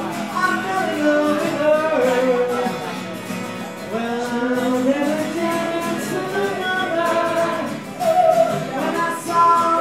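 Live acoustic duo: two acoustic guitars played with singing over them.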